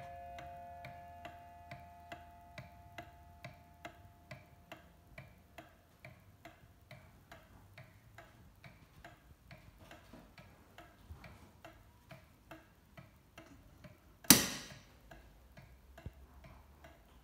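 Antique New Haven cottage mantel clock ticking steadily, about two beats a second. The last of a ringing strike fades out over the first few seconds, and one loud, sharp knock comes about 14 seconds in.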